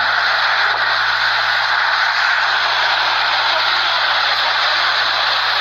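Tornado winds blowing hard: a loud, steady rushing noise that holds without let-up.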